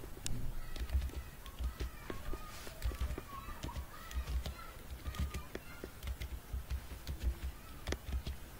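Computer keyboard keys clicking one at a time at an irregular, unhurried pace as a short name is typed, each click with a low thud. Faint distant voices in the background.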